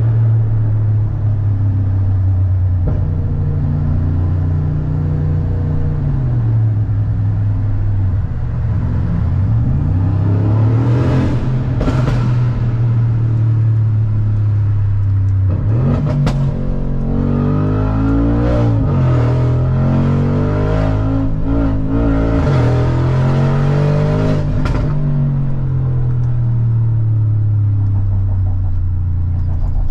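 Mansory G900's 4.0-litre V8 heard from inside the cabin while driving, its engine note rising and falling as the driver accelerates and shifts, with a stretch of repeated quick revs in the middle.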